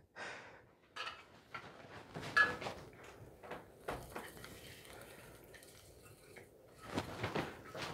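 Faint rustling and a few light clinks and taps from ornaments being hung on a Christmas tree, the loudest clink about two and a half seconds in.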